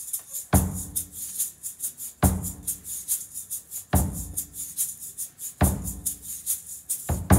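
Drum kit playing a slow backbeat, a heavy drum hit about every 1.7 seconds, with a small maraca held in the stick hand shaking a steady, fast rattle of about five strokes a second over it.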